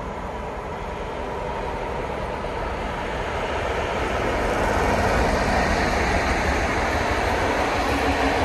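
SU42 diesel locomotive running as it approaches and passes, hauling a train of double-deck passenger coaches. The engine and rolling wheels grow louder over the first five seconds, then hold steady as the coaches roll past.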